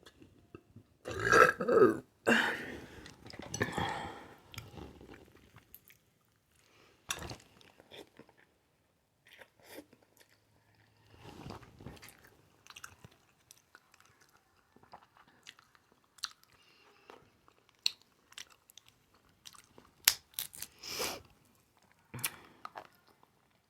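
Two loud burps in the first few seconds, then close-miked eating of a seafood boil: chewing with wet smacks, crunches and sharp little clicks that come and go.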